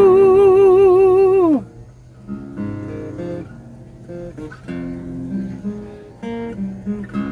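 A sung note held with vibrato that falls away about a second and a half in, then an acoustic guitar playing alone, picked notes and strummed chords.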